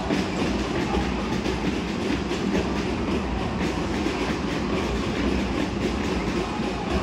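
Basketball arena din during live play: a steady crowd and hall rumble with frequent short knocks scattered through it.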